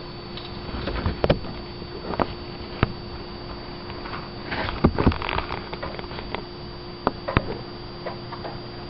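Irregular taps and clicks, a dozen or so scattered unevenly over a steady faint hum and hiss.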